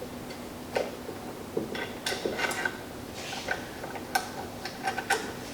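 Light metallic clinks and ticks at irregular intervals, about seven in all, as a steel pin and its washers are handled and fitted by hand, over a faint steady hum.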